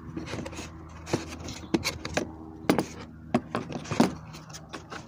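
Hand tools from a small car tool kit being handled and set down in their plastic case: a series of irregular sharp clicks and clinks, with some rubbing and scraping, over a faint steady hum.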